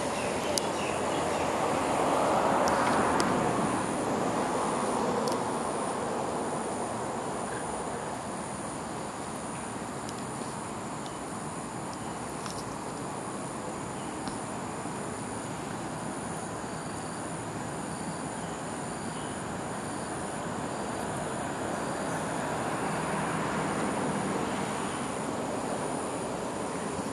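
Outdoor ambience: insects chirping in a high, evenly pulsing trill over a broad rushing noise that swells twice, around three seconds in and again near the end.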